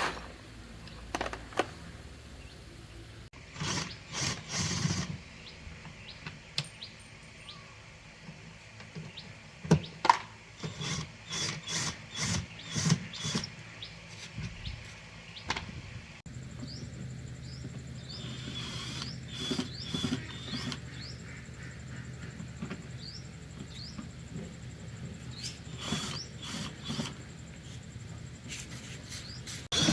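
Scattered clicks and knocks, as of tools and parts being handled, coming in irregular clusters, with faint short high chirps in the background.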